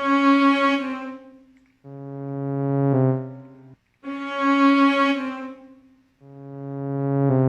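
Background music: a run of long held brass-like chords, each swelling up and then breaking off, about every two seconds.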